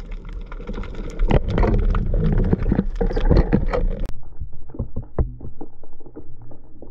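Underwater noise picked up through an action camera's waterproof housing: a rush of water with a dense crackle of sharp clicks. About four seconds in the sound suddenly turns duller, losing its high end, while the clicking goes on.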